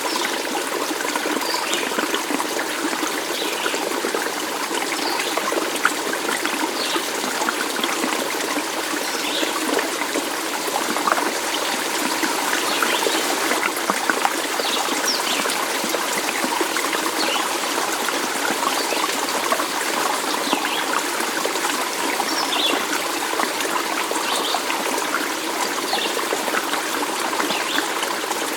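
Shallow stream of water trickling and babbling steadily.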